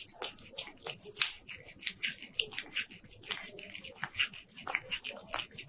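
A cat's mouth noises close to the microphone: quick, irregular wet clicks and smacks of its tongue and jaws, several a second.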